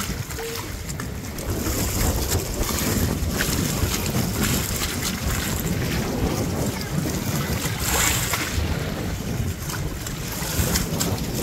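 Wind buffeting the microphone over waves washing against wooden pier pilings, with a brief louder rush of noise about eight seconds in.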